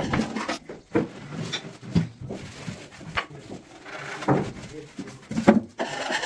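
Irregular knocks and clatters of carpentry work on wooden cupboard parts, about one a second, the loudest a little before the end.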